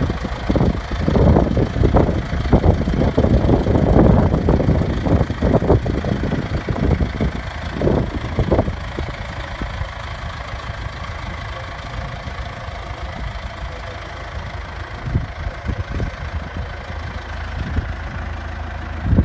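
John Deere 5720 tractor's diesel engine running, with an uneven clatter for the first half that settles to a steadier, quieter run about nine seconds in.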